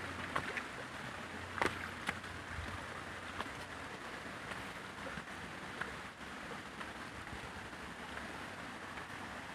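Steady rushing of water running through a shallow rocky stream. A few sharp knocks of footsteps on the rocks come in the first couple of seconds.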